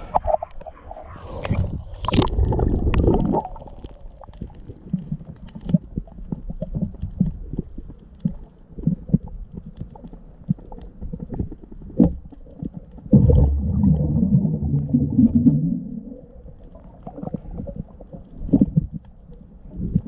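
Muffled underwater water sounds: low rumbling and gurgling with scattered knocks. There are louder swells of rumbling about two seconds in and again about thirteen seconds in.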